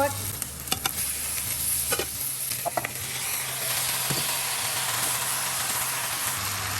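Pork pieces sizzling in hot rendered pork fat with garlic and onion as they go back into the pan and are stirred, with a few sharp clinks of the utensil against the pan. The sizzle grows fuller about halfway through.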